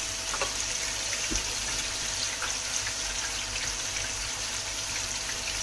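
Hot oil sizzling steadily in a frying pan as fried rolls are lifted out, with a few faint clicks.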